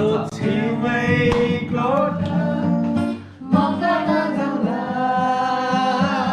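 A song: a man singing held, wavering notes over guitar, with a short break about three seconds in.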